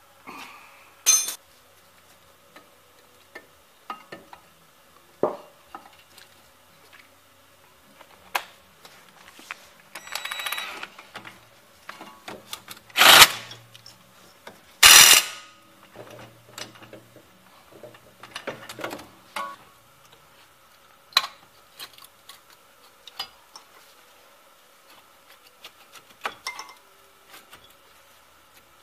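Hand tools and metal parts clinking and knocking now and then during work on a car's front wheel hub and brake, with two louder rustles about halfway through.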